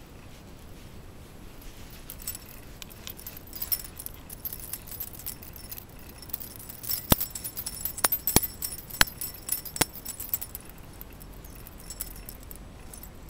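The metal buckle and tag on a Shiba Inu's collar jingling and clinking as the dog's chest and neck are rubbed, starting a couple of seconds in, with a run of sharp clicks in the middle and dying away near the end.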